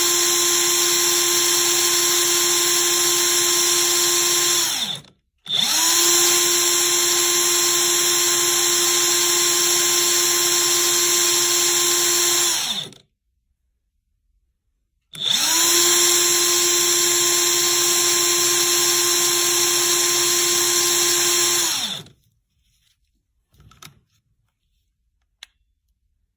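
Craftsman CMCF940 cordless impact wrench running free at full speed in three long trigger pulls of about five to seven seconds each, a steady whine that winds down each time the trigger is released. It spins smoothly without hammering: the gearbox is running normally again, the displaced bushing having been knocked back into line.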